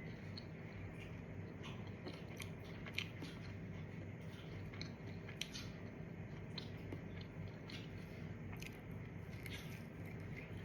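A person eating: soft chewing and crunching with scattered small clicks, over a steady low hum.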